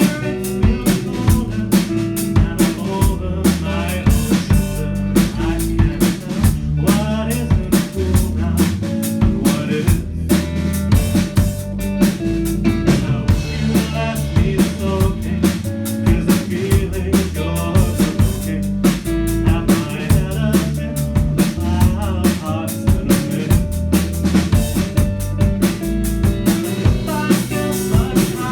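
Live band playing a song with no singing: a drum kit keeps a steady beat of kick, snare and rimshots over sustained bass notes and other instruments.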